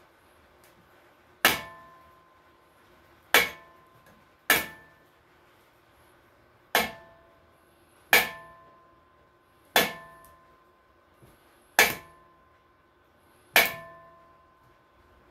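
A hammer striking metal eight times at an uneven pace, roughly one blow every one and a half to two seconds. Each blow is a sharp clang that rings briefly with a few clear tones.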